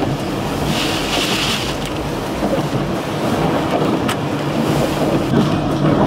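Storm-force wind, a steady heavy rumble with a hissing gust about a second in and one sharp click near the end.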